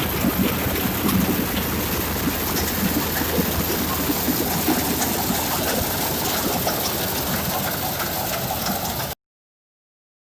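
Rice combine harvester running, a steady mix of engine and machinery noise, which stops abruptly about nine seconds in.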